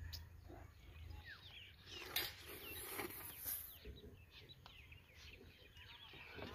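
Birds chirping faintly, many short rising and falling calls, with a few light clicks in between.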